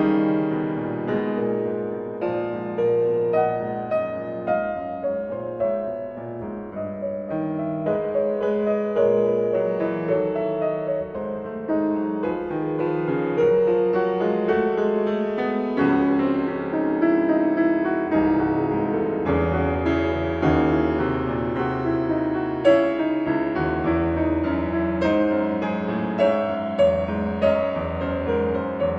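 Background piano music, a flowing line of notes, with deeper bass notes joining about two-thirds of the way through.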